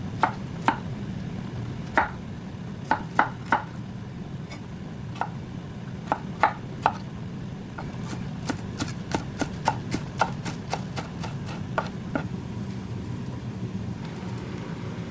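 A kitchen knife chopping salad leaves on a cutting board. The taps are sharp and irregular, at first in short clusters. They quicken to a run of several strokes a second in the middle, then thin out near the end.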